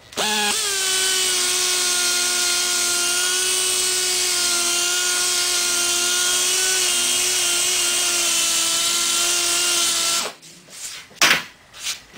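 Small air-powered right-angle grinder spinning up and running with a steady whine and a high air hiss, its pitch sagging slightly as it is pressed into corroded aluminum from a Cessna wing spar to grind the corrosion back to bare metal. It cuts off abruptly about two seconds before the end, followed by a few light knocks as the tool is set down on the bench.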